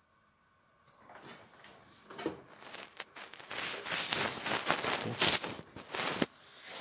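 Rustling and scraping handling noise as oven wires and multimeter test leads are moved about and fitted to the heating element's terminals, with small clicks among it. It starts about a second in and stops shortly after six seconds.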